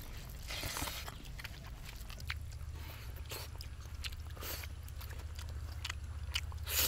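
People eating, with scattered soft clicks and crunches of chewing and handling food. A low steady hum comes in about two seconds in.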